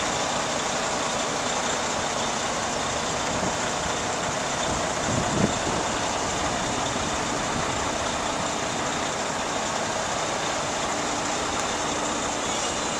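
Western Star 4900SA dump truck's diesel engine idling steadily, with a brief thump about five seconds in.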